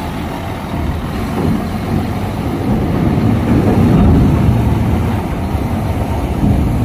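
Mercedes-Benz tractor-trailer's diesel engine running under load as the truck drives onto the ferry, getting louder about halfway through.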